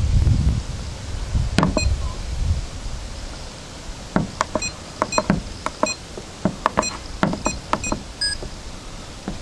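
Keypad of a RigExpert AA-170 antenna analyzer: about a dozen quick button clicks, most with a short electronic beep, as the 144.200 MHz frequency is keyed in for an SWR check. A low wind rumble on the microphone fills the first two seconds.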